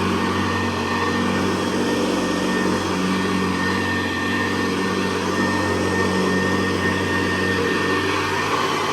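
Hoover Convertible Model 68 upright vacuum cleaner running steadily while vacuuming carpet: a constant motor drone with a thin high tone above it.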